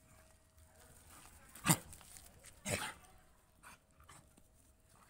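Dogs play-fighting, with two short, sharp barks about a second apart.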